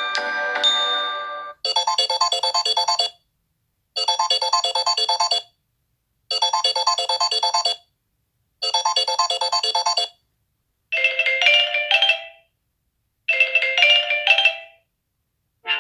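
Samsung Galaxy J7 Pro stock ringtones playing one after another through the phone's loudspeaker. A melodic chime tune ends in the first second and a half. Then a short burst of fast repeated electronic notes sounds four times with brief pauses, and after it a different short tune plays twice.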